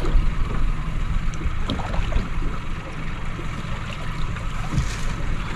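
Wind buffeting the microphone over choppy sea water washing against a small boat's hull, a continuous rumbling rush.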